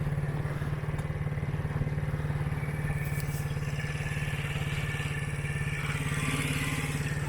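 Engine of a motorised Power Wheels ride-on build running steadily at an even, constant speed.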